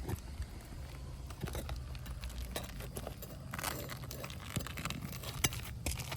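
Light, scattered clicks, taps and scrapes of hands and tools working loose asphalt roof shingles and their nails, over a steady low rumble.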